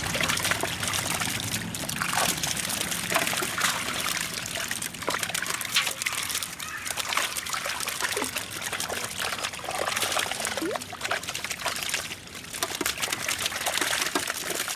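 Water trickling and splashing, with many small quick splashes close together.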